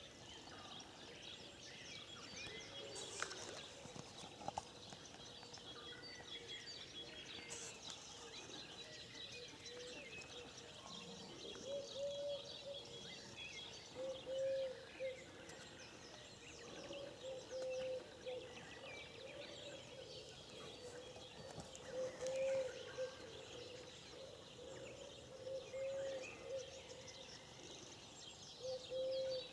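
Quiet outdoor birdsong: many small birds chirping and singing, with a lower call repeated every few seconds from about twelve seconds in.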